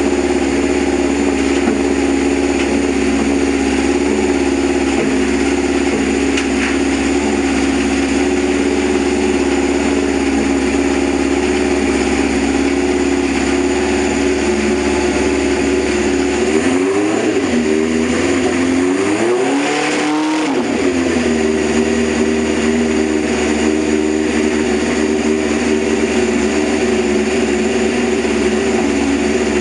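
Freshly rebuilt engine running steadily at idle during its first heat cycle, with two short blips of the throttle a little past halfway that rise and fall in pitch before it settles back to idle.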